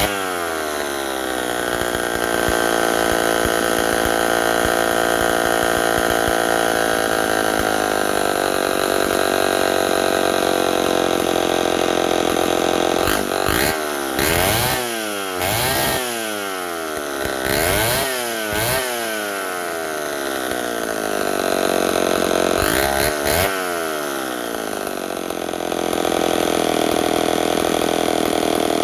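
Homelite 770D 95cc direct-drive two-stroke chainsaw running. It drops from a rev into a steady idle, is revved up sharply in a quick series of bursts about halfway through and once more a few seconds later, then settles back to idle.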